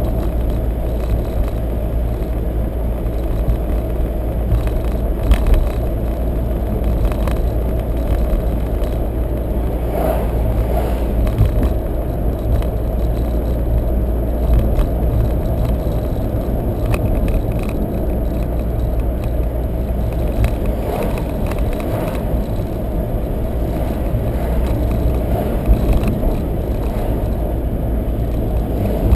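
Car driving, heard from inside the cabin: a steady low rumble of tyres and engine, with a few faint knocks.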